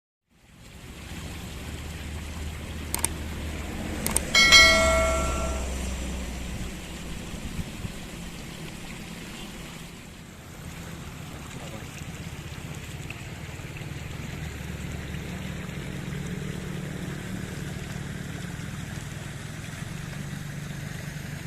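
Steady rushing noise with a low hum, broken about four seconds in by two sharp clicks and then a single loud bell-like strike that rings and dies away over a second or two.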